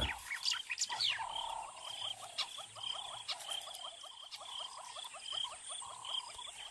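A chorus of frogs calling: a rapid run of short chirps, about five a second, with a pulsing higher call over them.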